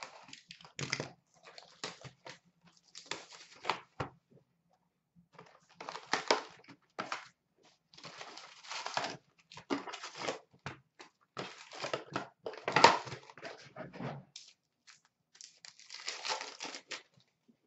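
Upper Deck SP Authentic hockey card box and pack wrappers being handled and torn open by hand: irregular spurts of crinkling, rustling and tearing, with short pauses between them.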